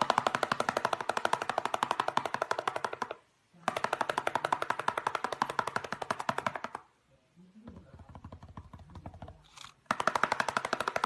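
A parrot loudly drumming its feet on cardboard: rapid runs of sharp taps, about a dozen a second, in three bursts of about three seconds each with short pauses between.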